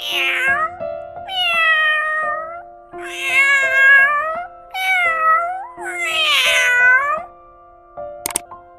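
Domestic cat meowing five times in a row, each meow drawn out and bending in pitch.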